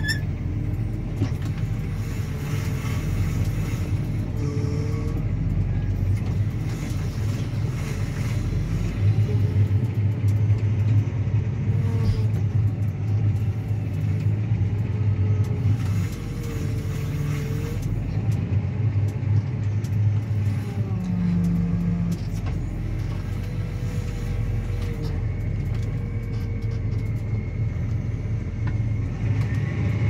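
Claas Axion 850 tractor's six-cylinder diesel engine running steadily under load while pulling a reversible plough, heard from inside the cab as a deep drone.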